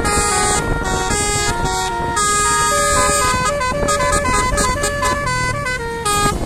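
A bus's basuri horn, a set of air horns playing a tune note by note, each note held a fraction of a second to about half a second.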